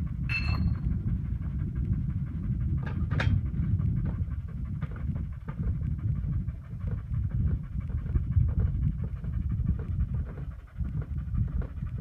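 Wind buffeting the microphone, a steady low rumble, with a few sharp metallic clicks from handling the rifle: one with a short ring just after the start and two more about three seconds in.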